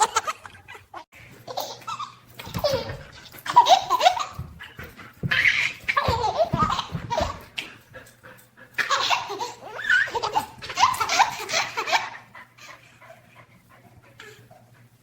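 A baby laughing in three long bursts of giggles, with a puppy's sounds mixed in, and a few low knocks in the middle; it goes quieter near the end.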